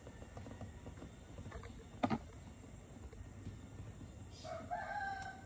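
Quiet handling of a plastic syringe in a glass graduated cylinder: faint small clicks and taps, with one sharp click about two seconds in. Near the end a faint drawn-out tone with a couple of overtones comes in from the background.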